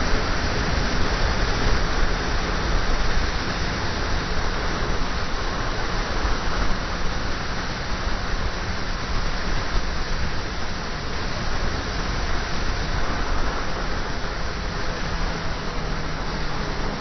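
Steady rushing wind on the microphone of a motorcycle-mounted camera at riding speed, with the motorcycle's engine running underneath.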